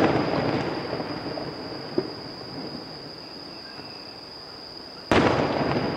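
Two distant aerial firework shells bursting: a boom right at the start and another about five seconds in. Each boom is followed by a rolling rumble that dies away over a second or two.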